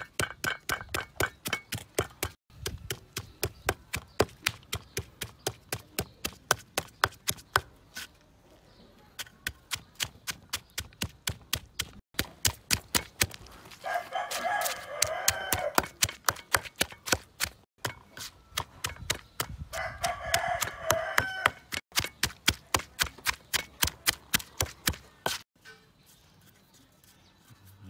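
Wooden pestle pounding salt and chili in a stone mortar: sharp knocks about three a second, with a short lull around eight seconds in, stopping shortly before the end. A rooster crows twice in the background, around the middle.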